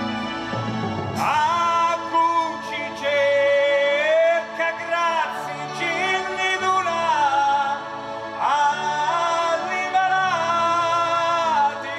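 Slow devotional song: a solo voice holding long notes that slide and bend between pitches, over steady instrumental backing.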